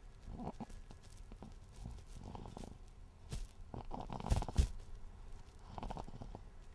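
Snoring during sleep: soft snores come with each breath, about every two seconds, and the loudest falls a little past the middle.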